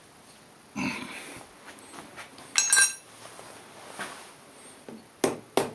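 A bright metallic clink with a short ring about halfway through, then, near the end, light hammer taps, about three a second, on the tilting head of a milling machine, nudging it towards 45 degrees.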